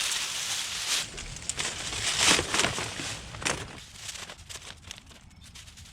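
Dry leaves and sticks rustling and crackling as they are handled on a brush pile, with a few sharper snaps in the first half and only faint crackles after about three and a half seconds.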